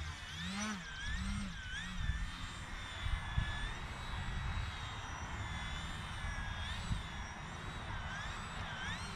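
32-inch Edge 540 RC aerobatic plane's motor and propeller whining, the pitch rising and falling again and again as the throttle is worked to hold the plane in a nose-up hover. Wind rumbles on the microphone underneath.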